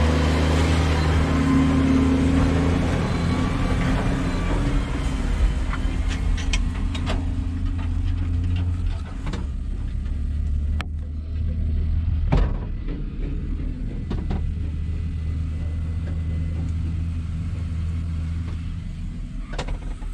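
Tractor diesel engine running steadily, heard from inside the cab. In the first few seconds a Case IH tractor pulling a sugarcane wagon passes close by and adds its own engine noise. A couple of sharp knocks come around the middle.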